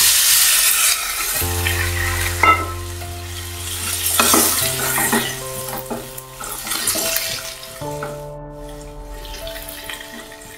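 Cold liquid poured into a hot oiled pan of fried elephant apple pieces, hissing and sizzling loudly at first and dying down over the next few seconds as a wooden spatula stirs it. Soft background music with long held notes runs underneath.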